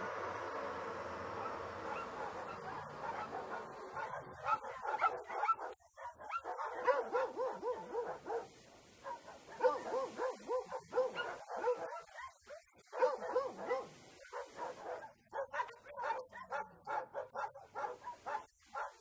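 A steady hum fades out over the first few seconds. From about four seconds in comes an irregular run of short, high-pitched animal yelps and barks.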